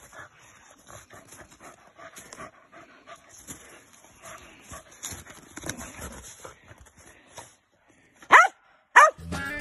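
A dog panting, then two short, loud yips about a second apart near the end, each falling in pitch.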